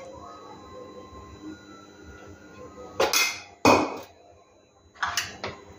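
A spoon and bowls knocking against a metal cooking pot while gram flour is tipped in: two short, sharp clatters about three seconds in and a smaller one near the end.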